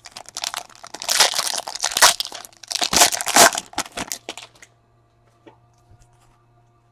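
Foil wrapper of a trading-card pack crinkling and tearing as it is ripped open and the cards are pulled out. The crackling is loudest about a second in and again about three seconds in, and it stops about four and a half seconds in, leaving only a couple of faint clicks.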